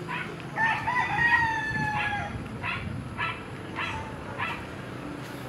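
A rooster crows once, a long call of nearly two seconds that starts just under a second in and falls slightly in pitch. A dog barks over it again and again, about every half second.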